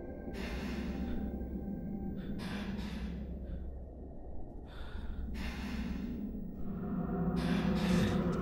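A young man panting heavily, out of breath from climbing stairs: about five loud gasping breaths, one every second or two, over a low steady hum.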